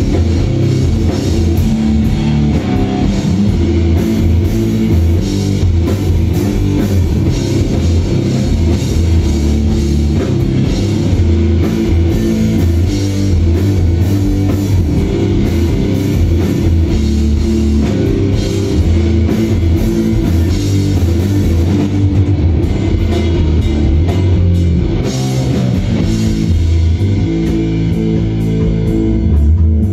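A live rock band playing loud, heavy instrumental rock on distorted electric guitars and a drum kit, heard from the audience.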